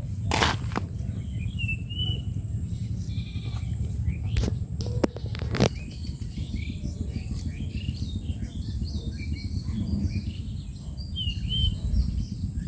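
Outdoor ambience: a steady low rumble with a few sharp clicks or knocks, and short bird chirps twice, once early and once near the end.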